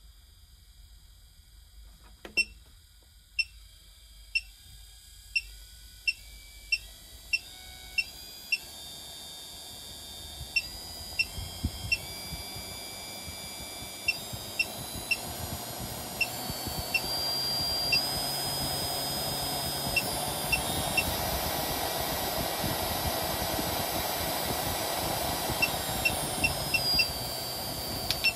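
12–24 V, 200 W DC spindle motor running faster as its supply voltage is stepped up from 4 V to 11 V: its whine climbs in pitch in steps and the running sound grows louder until about two-thirds of the way in, then holds steady. Over it, the bench power supply's adjustment knob gives short high beeps, about one a second, in runs as it is turned.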